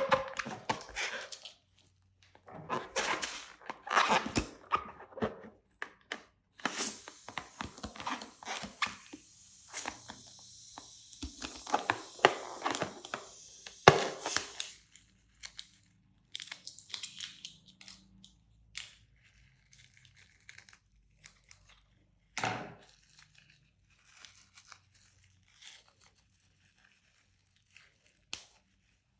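Slime being pressed, stretched and mixed by hand, giving dense crackling and popping snaps for about the first half, then only scattered clicks and an occasional louder pop.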